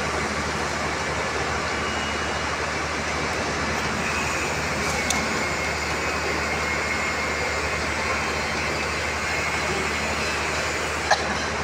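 Electric rebar bending machine's motor and gearbox running steadily with a low hum, while steel bars are positioned on it. A small click about five seconds in and a sharp knock near the end, likely from the steel bars.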